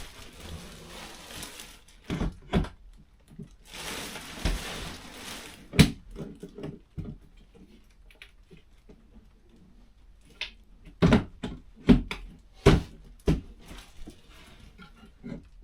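Wall-hung vanity unit being slid and knocked into place on its wall brackets: scraping noise twice in the first few seconds, then a series of sharp knocks and thuds.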